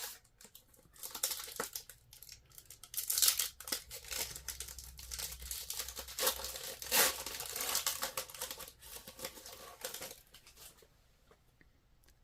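Crinkling and rustling of a trading-card pack wrapper and cards being handled. The crackle comes in irregular spurts from about a second in and dies away near the end.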